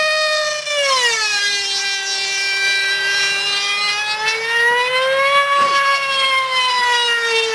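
F3D pylon-racing model aircraft's IR 40 two-stroke glow engine running flat out as the plane laps overhead: a high-pitched whine that drops sharply in pitch about a second in as it passes, then slowly rises and falls again on the next pass.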